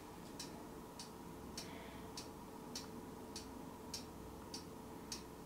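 Faint, evenly paced ticking, a little under two ticks a second, over a low steady hum.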